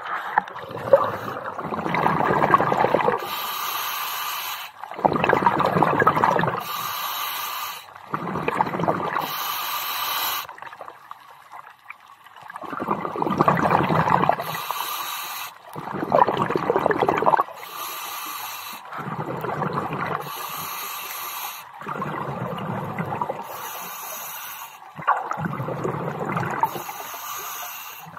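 Scuba diver's breathing through a regulator underwater: a rush of exhaust bubbles on each exhale, coming every three to four seconds, with a thin hiss between them.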